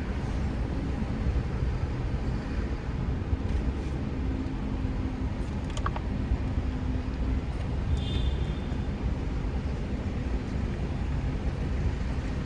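Car engine running with a low, steady rumble, heard from inside the car. There are a couple of faint clicks about six seconds in and a short high chirp about eight seconds in.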